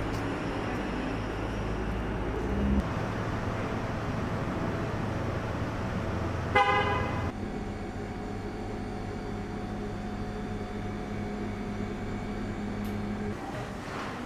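Street traffic running steadily, with a single car horn honk lasting under a second about six and a half seconds in.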